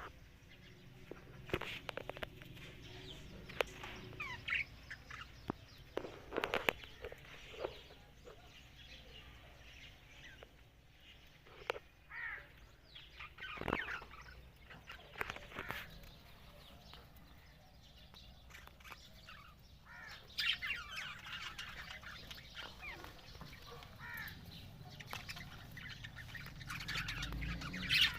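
Budgerigars chirping and chattering in short, scattered calls, with a denser flurry of warbling about twenty seconds in and again near the end.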